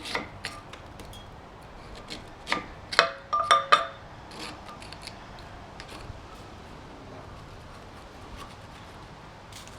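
Metal parts of a dismantled wood chipper shredder being handled: scattered clicks and knocks with light rubbing, and a quick run of ringing metal clinks about three seconds in.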